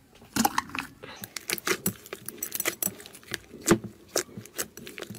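Thick green slime squeezed and kneaded by hand in a glass bowl: a fast, irregular run of sharp, sticky clicks and pops as air is pressed out of it.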